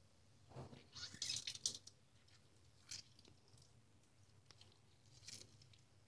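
Faint squelching and splattering of water as boiled, washed soya chunks are squeezed out by hand over a sink, with a short cluster of splashes about a second in and single ones near three and five seconds.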